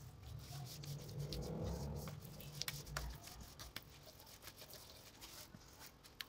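Spatula stirring and scraping a thick, wet batter around a steel bowl, with scattered light clicks. About a second in there is a low rumble for a second or so.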